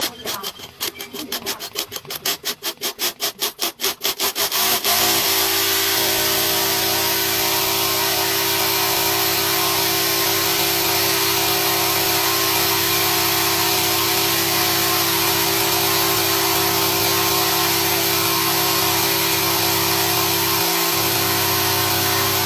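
Zigzag sewing machine running. It starts with a quick train of needle strokes that speeds up over the first five seconds, then settles into a steady, fast, even run.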